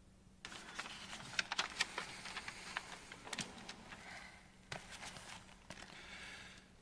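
Paper being unfolded and handled close to lectern microphones: irregular crisp rustling and crinkling with small sharp clicks, starting about half a second in.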